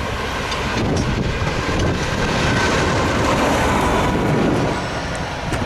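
Motor draisine with a crane running light on the track, passing close by: its engine and wheels on the rails grow louder to a peak about three to four seconds in, then ease slightly.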